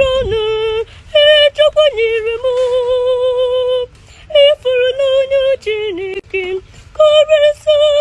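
A young boy singing alone in a high voice, without accompaniment, in phrases of long held notes broken by quick wavering turns, with a short breath break about four seconds in.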